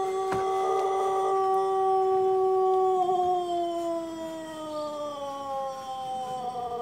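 Pelung rooster giving a long, drawn-out crow: one held note that stays level, then from about three seconds in slides slowly down in pitch.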